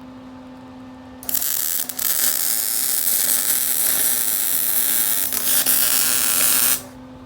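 Welder laying a bead for about five seconds: a harsh, steady hiss that starts suddenly about a second in, falters briefly, and cuts off abruptly near the end, over a steady low hum.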